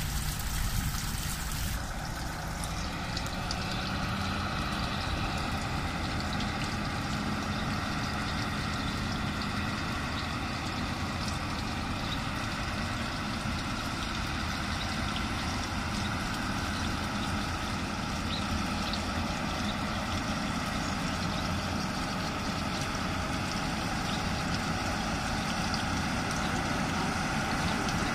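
Diesel engine of a 6x6 airport fire truck running steadily as it drives slowly and sprays water from its bumper nozzles. A broad hiss in the first two seconds cuts off sharply.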